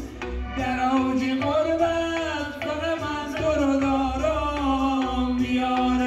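A man singing a slow melody with long held, wavering notes into a microphone through a PA speaker, over electronic keyboard accompaniment with a pulsing bass beat.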